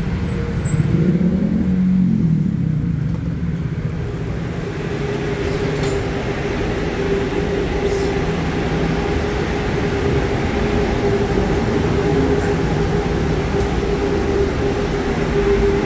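Tempe Streetcar, a Brookville Liberty modern streetcar, standing at a stop: a steady low rumble from the car, heard first from the platform and then from inside. A brief rise and fall in pitch comes about two seconds in, and a steady humming tone from the car's onboard equipment sets in about five seconds in.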